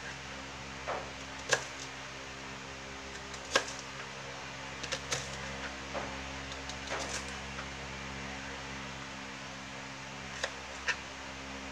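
Kitchen knife slicing a small red onion on a plastic cutting board: scattered sharp taps of the blade against the board, some louder than others, over a steady electrical hum.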